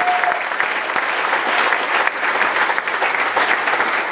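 Many people applauding steadily, a dense patter of hand claps.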